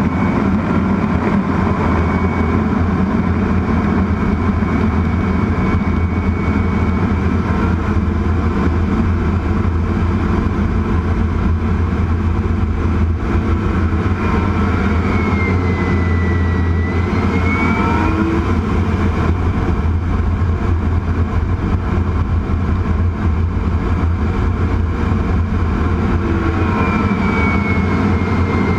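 An AV-8B Harrier's Rolls-Royce Pegasus turbofan heard from inside the cockpit in flight: a loud steady rush over a low drone, with a thin high whine that dips in pitch and climbs back around the middle, then glides down again near the end.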